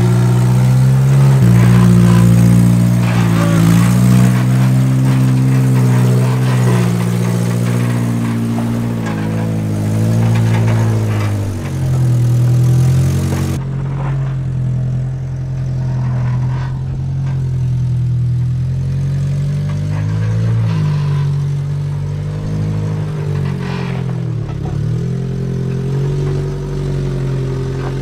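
Off-road 4x4's engine running under changing throttle while crawling, its pitch rising and falling with small blips of revs. About halfway through, the higher hiss drops away abruptly, leaving the engine alone.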